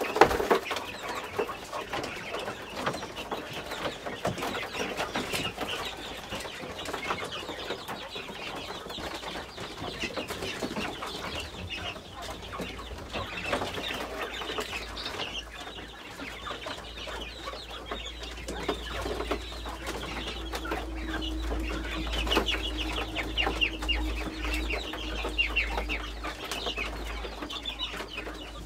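Domestic chickens clucking continuously, many short calls overlapping. A low rumble comes in about halfway through and runs under them.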